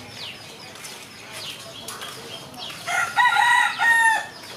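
A rooster crowing once, about three seconds in: a loud, pitched crow of about a second and a half in a few joined parts. Faint short chirps of small birds run underneath.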